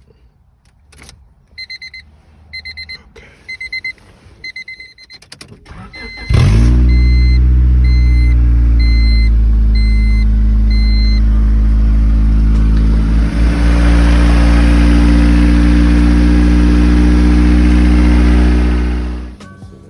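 A 2000 Honda Civic's four-cylinder engine is started: a few clicks and a steady series of high dashboard warning beeps, then about six seconds in the engine catches and settles into a loud, steady idle that runs on until it fades near the end.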